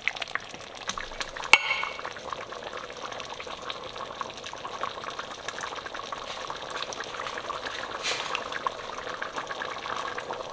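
Hot chili crackling and bubbling softly in an enamelled pot as a metal ladle scoops through it. There is one sharp clink of the ladle against the pot about a second and a half in.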